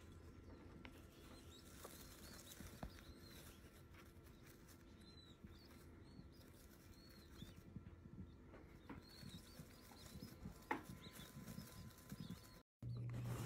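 Faint, soft peeping of tiny newly hatched chicks, short high chirps scattered throughout over a low steady hum, with one sharp tap near the end.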